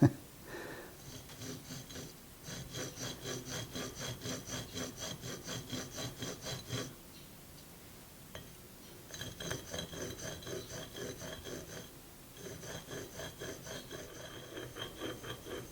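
A tiny chisel ground from a screwdriver, clamped in a sharpening jig, is rubbed back and forth on a sharpening stone with light pressure. The strokes are quick and even, about three a second, in three runs with short pauses between them.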